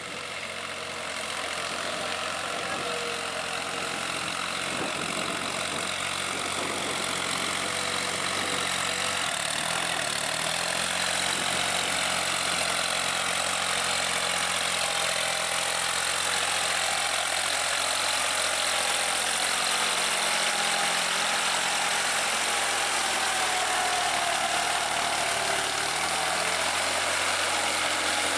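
New Holland TT55 tractor's diesel engine running steadily under load while its rear rotary tiller churns through wet paddy mud, growing louder over the first couple of seconds, with small drifts in engine speed.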